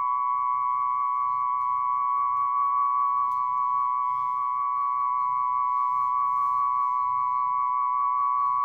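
Tonearm-resonance test track of a test record played through an Audio-Technica AT-3600L cartridge on a Dual 721 turntable: two test tones of 1000 Hz and 1125 Hz held together at a steady level, in the band that carries a 5 Hz resonance test signal.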